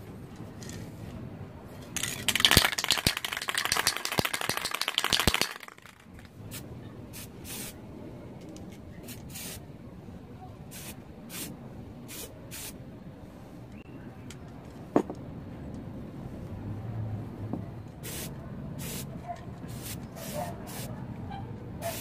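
Aerosol spray can spraying a ceramic vase: one long burst of about three seconds, then a string of short puffs as the vase is turned.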